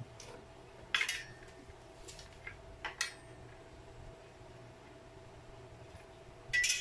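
Handling noise from a palm router and its plastic straight guide being fitted and turned in the hands: a few scattered clicks and knocks of hard plastic and metal parts, the loudest about a second in and a cluster near the end. A faint steady hum runs underneath; the router's motor is not running.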